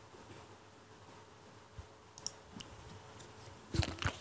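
Quiet room tone with a faint steady hum, then from about halfway a scatter of small sharp clicks from a computer mouse, with a louder low knock of desk handling near the end.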